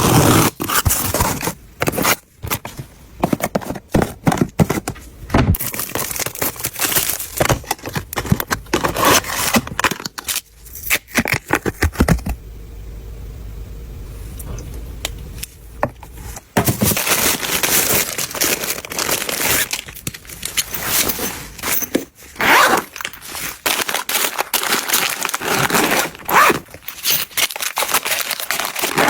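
Close-up handling of packaging and containers: plastic crinkling, wrappers tearing and items scraping, with many sharp clicks and knocks. A steadier, quieter stretch comes midway.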